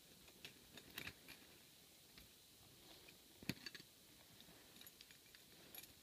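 Faint, scattered metallic clicks and taps from handling a picked-open brass Yale 5-pin padlock and its lock picks, with a sharper click about three and a half seconds in.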